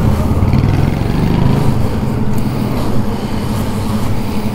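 A motorcycle engine idling with a steady low throb.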